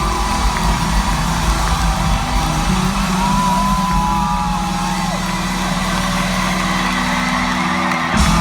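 Live band playing the instrumental outro of a pop ballad, with held chords over a low bass rumble and a few high gliding notes. A sharp crash comes near the end.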